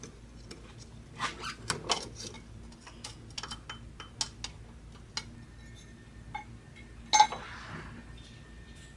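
Light metallic clinks and clicks as a cleaned EGR channel plate is fitted back over the studs on the intake manifold, with a sharper knock about seven seconds in.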